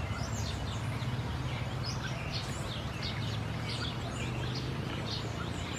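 Small birds chirping: many short, high chirps that fall in pitch, several a second, over a steady low rumble.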